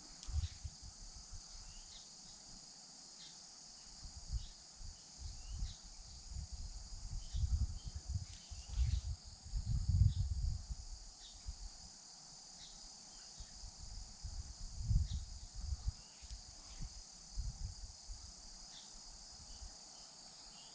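Steady high-pitched chorus of late-summer insects, such as crickets, running without a break. Irregular low rumbles and thuds come and go under it, the loudest about halfway through.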